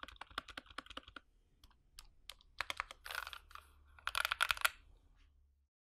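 Typing on a GK61 60% mechanical keyboard fitted with lubed Gateron Optical Red linear switches: a run of keystrokes with two fast flurries, about three seconds in and, loudest, about four seconds in. The sound cuts off just before the end.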